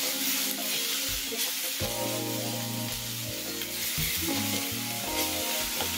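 Sliced onions sizzling in hot oil in a stainless steel frying pan, stirred with a wooden spoon, over steady background music.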